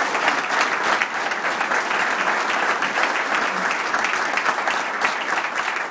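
Audience applauding, a dense steady clapping that fades near the end.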